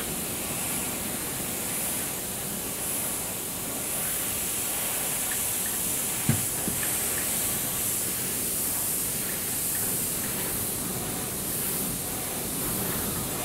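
Airbrush spraying paint: a steady, even hiss of air through the nozzle. A brief low knock about six seconds in.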